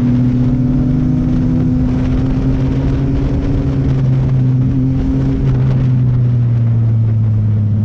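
Sport motorcycle engine running at a steady cruise while riding, a continuous hum whose pitch drifts slightly and dips a little partway through, over an even rushing noise.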